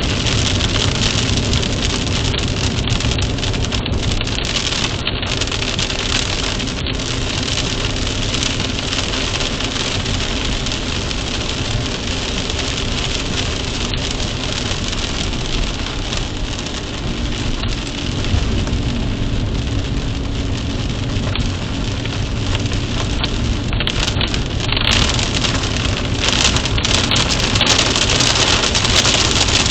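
Steady rain falling, a dense even hiss throughout, with a faint low steady hum underneath.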